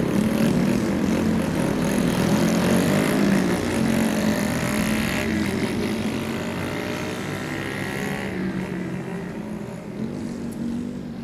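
Several custom Honda Monkey minibikes with aftermarket exhausts pulling away together, their small single-cylinder four-stroke engines rising in pitch as they accelerate. The sound fades as the bikes ride off.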